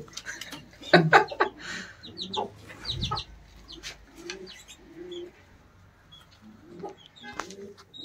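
Chicks cheeping in short high peeps, with short low clucks from hens in between. A few sharp knocks sound about a second in.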